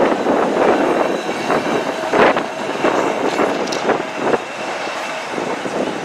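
English Electric Balloon double-deck tram passing close and pulling away along street track, its wheels clacking irregularly over the rails. The clacks die out about four and a half seconds in, leaving a fading rumble as it recedes.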